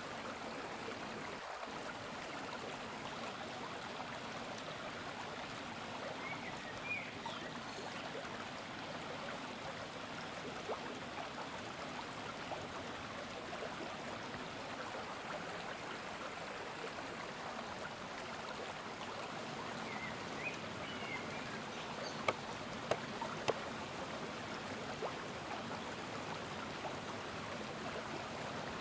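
Steady rush of flowing stream water, with three sharp clicks a little past the middle.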